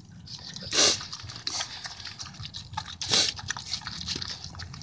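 A dog eating soft food from a paper plate: wet chewing and lip-smacking, with many small clicks. Two louder, noisier smacks come about a second in and about three seconds in.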